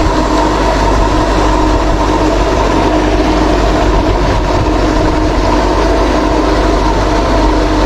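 A motor running steadily, a constant machine drone with a steady hum.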